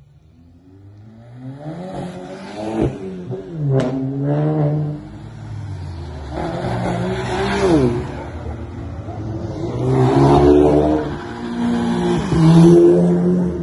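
Several Volkswagen Golf GTI hatchbacks drive past one after another, their turbocharged four-cylinder engines revving up as each car accelerates and dropping away as it goes by. A single sharp crack comes about four seconds in.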